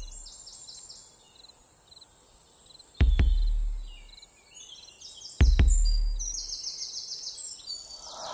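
Forest ambience: a steady high hiss with repeated rapid chirping trills. It is broken twice by deep cinematic boom hits, about three seconds and five and a half seconds in, each fading over about a second.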